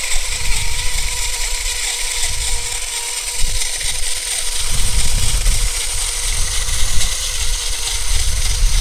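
Two toy RC cars' electric motors running flat out against each other in a tug of war, a steady whine over wheel hiss.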